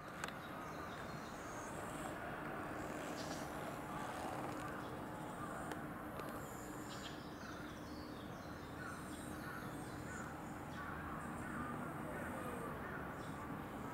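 Birds calling in short scattered chirps over a steady outdoor background hum.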